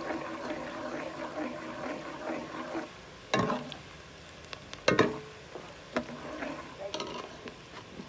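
Chopped onions frying in oil in an aluminium pot, stirred with a steel ladle. The ladle knocks sharply against the pot twice, about three and a half and five seconds in, with lighter clinks after.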